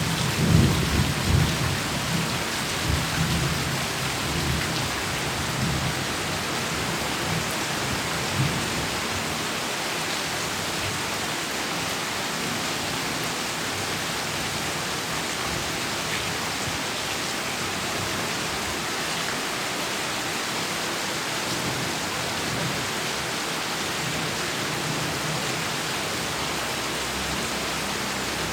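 Heavy rain falling steadily, with a low rumble of thunder at the start that dies away over the first eight seconds or so.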